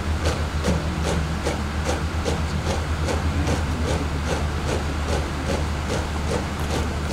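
Cadets' boots striking a concrete parade ground in unison while marching in step, an even beat of a little over two footfalls a second, over a steady low hum.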